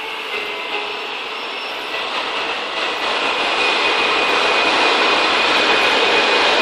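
Electric laser-guided forklift AGV driving, a steady whirring with a thin high whine, getting louder about halfway through.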